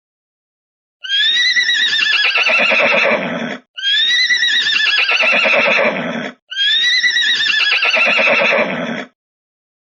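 Horse whinny, the same recording played three times in a row; each is a high, quavering call that falls in pitch over about two and a half seconds.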